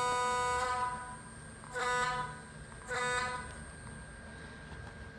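Diesel locomotive horn from an ESU HO sound decoder, played through a small Bluetooth speaker inside a model boxcar: one long blast that ends about a second in, then two short blasts.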